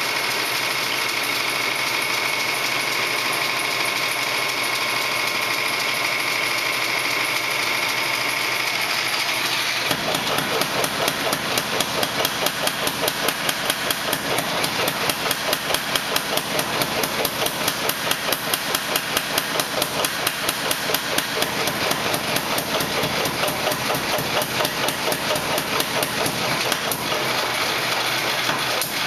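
Rapid, evenly spaced hammer blows forging the steel spearhead, about three a second, starting about a third of the way in. Before them, a steady rushing noise with a high whine.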